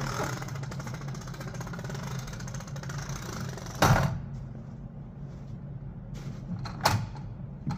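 A car engine idling with a steady low hum. Two sharp knocks come about four and seven seconds in, with a lighter one near the end.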